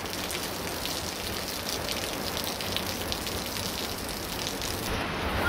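Steady patter and splash of falling water, like rain on a hard surface, with many small droplet spatters; the sound changes abruptly near the end.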